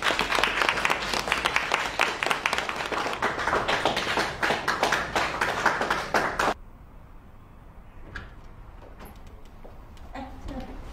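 A group of students clapping their hands in applause, dense and steady. It cuts off abruptly about six and a half seconds in, leaving quiet room tone with a few faint clicks.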